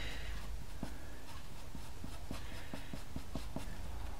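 Pastel pencil scratching across textured pastel paper in short, quick strokes, about three a second, as light colour is worked onto the branches of a drawn tree.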